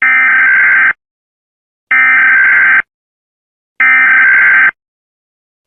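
Emergency Alert System SAME header: three loud bursts of buzzing digital data tones, each just under a second long with about a second's gap between them. They are the coded preamble that opens an EAS alert.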